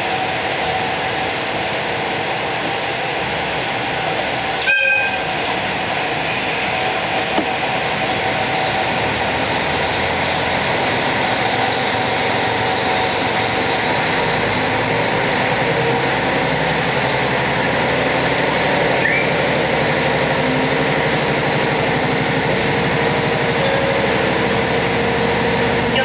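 Diesel engine of a KiHa 40 railcar, an N-DMF13HZI, heard from inside the car. It idles at first, then its note rises and strengthens about halfway through as the railcar pulls away from the station. A short high blip sounds about five seconds in.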